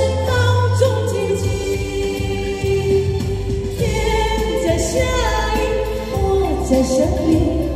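A woman singing a slow ballad melody into a handheld microphone, amplified through a portable PA speaker over backing music with a steady bass line.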